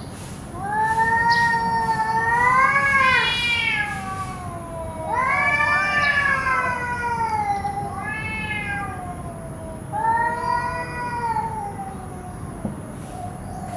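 Cats yowling at each other in a standoff: a string of long, drawn-out, wavering howls that rise and fall in pitch. This is the threat yowling cats make when they square off over territory.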